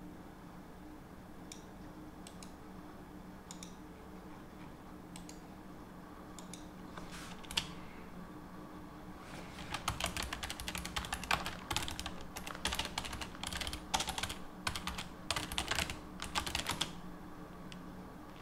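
Typing on a computer keyboard: a few scattered keystrokes at first, then a rapid run of keystrokes from about halfway through that stops shortly before the end. A faint steady low hum runs underneath.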